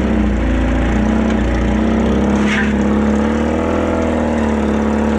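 Mini pulling tractor's motorcycle engine running steadily at low revs, its pitch lifting slightly and settling back a little past the middle.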